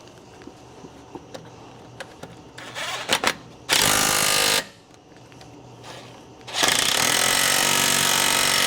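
A power tool runs in two bursts, a short one of about a second and then a longer one of over two seconds, with a few clicks and knocks of handled parts before them.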